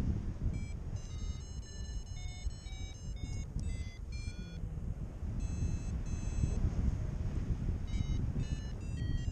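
Paragliding variometer beeping in short, high tones that step up and down in pitch, the climb signal of a glider in lift, over steady wind rumble on the microphone.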